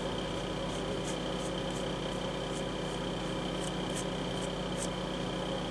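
A sanding stick drawn along the edge of a waterslide decal, cutting it to shape, gives short, faint, high scratching strokes about two a second. A steady electrical hum runs underneath.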